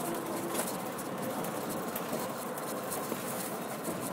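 Steady road and wind noise inside a car moving on a highway.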